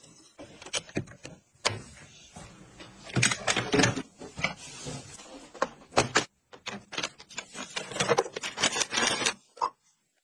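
Irregular clicks, taps and knocks of household items being handled and set down on a tabletop, with some scraping and clattering in between.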